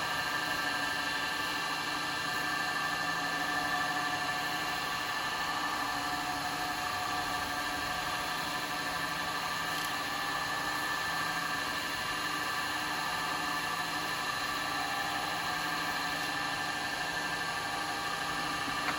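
Wood lathe running at a steady speed, a constant motor hum and whine, spinning a bowl during oil finishing.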